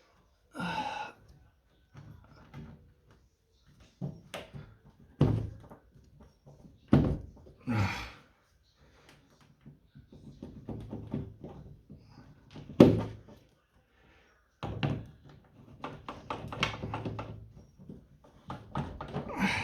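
Irregular knocks, thunks and scraping as a washing machine's blocked drain filter is wrestled by hand to get it out; one sharp knock about 13 seconds in is the loudest.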